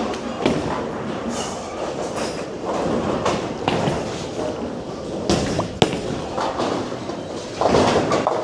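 Bowling alley din: bowling balls rumbling down the wooden lanes, with knocks and clatter of pins being struck, and a louder crash of pins near the end.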